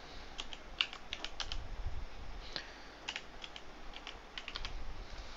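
Computer keyboard being typed on: about a dozen key clicks in short, irregular runs.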